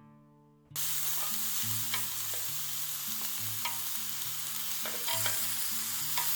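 Food sizzling in hot fat, starting suddenly about a second in as a steady hiss with scattered small pops.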